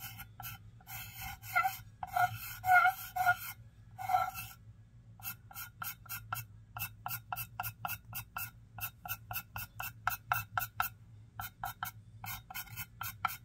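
Underglaze pencil drawing on a bisque-fired clay plate, squeaking with each stroke. A few longer screechy strokes come in the first four seconds, then quick short strokes at about three or four a second.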